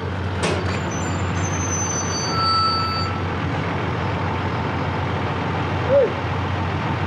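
Mack box truck's diesel engine running steadily as it pulls up and stops, with thin high squealing tones for a couple of seconds near the start and a short loud squeak near the end.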